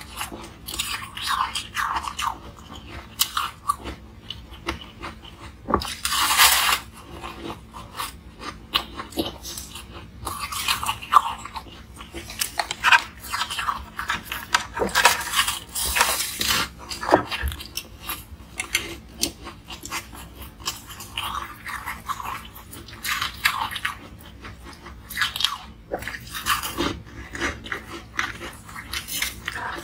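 Close-miked biting and crunching of a frosted block of ice, in irregular bursts of crackly crunches with chewing between bites.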